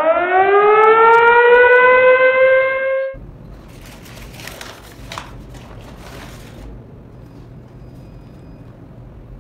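A siren sound effect winding up, rising in pitch and then levelling off, loud, and cutting off suddenly about three seconds in. After it, a paper takeaway bag rustles as it is opened, over the low steady hum of an air conditioner.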